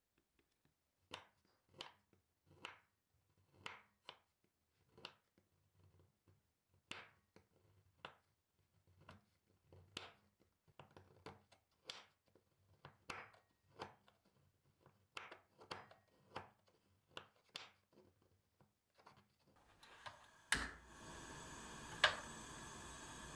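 A knife chopping on a cutting board: single sharp strokes, roughly one or two a second, over an otherwise quiet background. Near the end a click comes and a steady hiss sets in.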